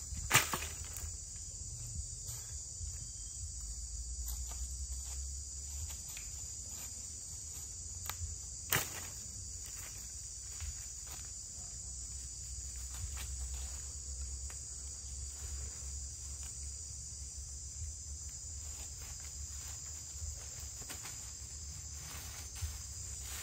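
A steady high chirring of insects, with a sharp clatter of dry firewood sticks dropped on the ground about half a second in. Scattered light footsteps on dry leaves follow, and another knock comes near nine seconds.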